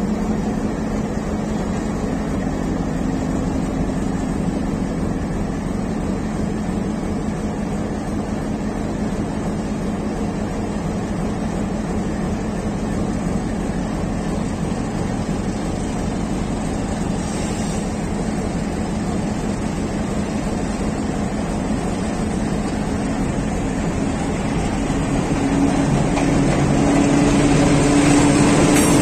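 Bangladesh Railway diesel locomotive 6016 running under power as it hauls the train out, a steady engine hum. The hum grows louder over the last few seconds as the locomotive draws alongside.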